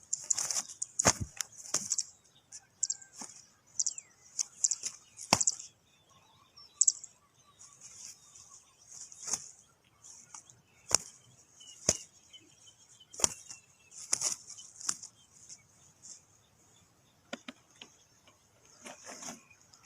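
A bird's wings flapping in short, irregular flurries, with sharp knocks scattered between them.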